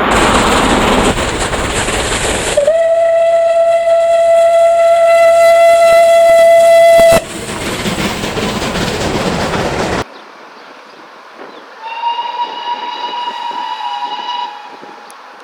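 Steam locomotive whistles. A long single-note whistle sounds for about four and a half seconds over loud train noise and cuts off abruptly. Then, with the train noise gone, a fainter, higher whistle sounds for about two and a half seconds, dipping slightly in pitch at the end.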